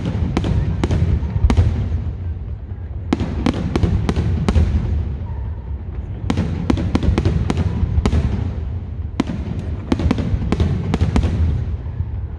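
Fireworks display: shells bursting in rapid volleys of sharp bangs, in groups every few seconds, over a continuous low rumble.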